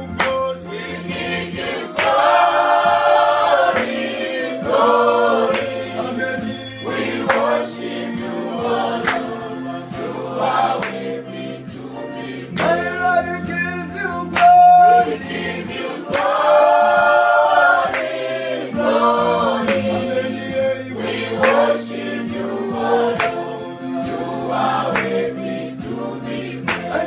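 Group of voices singing a gospel worship song together, with sharp regular beats that fit hand clapping.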